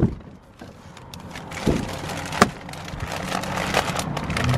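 Thin plastic shopping bag rustling and crinkling as it is handled, a run of small crackles with a couple of sharper clicks near the middle.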